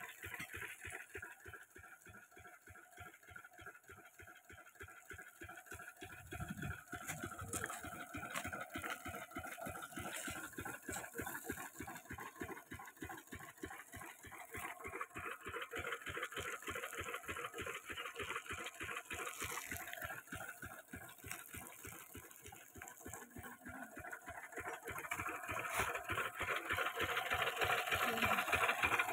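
Lister-type 8 hp single-cylinder diesel engine running with a steady, even beat of firing pulses, getting louder near the end.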